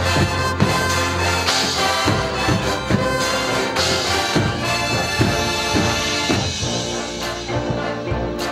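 Marching band playing: brass over a steady beat of about two percussion hits a second.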